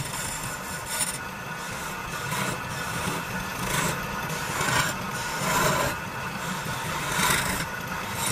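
Wood lathe turning a stair baluster with a steady low hum while a hand-held chisel cuts into the spinning wood, a scraping hiss that swells and fades about six times as the tool is worked along the piece.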